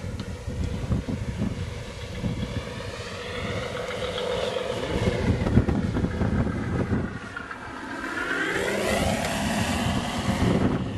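Large electric RC Ju 87 Stuka model flying past, a droning note whose pitch sweeps up and down as it passes and climbs toward the end, with wind rumbling on the microphone.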